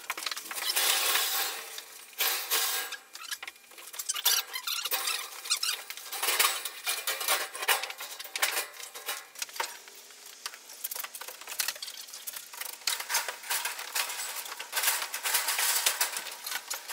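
Irregular clinks, knocks and scrapes of hands-on work in a rebar-lined foundation form: steel reinforcing bar and timber being handled and knocked against each other.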